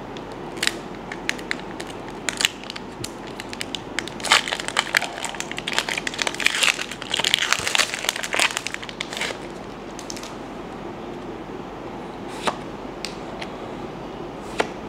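Pokémon TCG booster pack's foil wrapper crinkling and crackling as it is torn open and the cards are slid out. Sharp crinkly clicks come thick and fast through the middle, then thin to a few single clicks near the end.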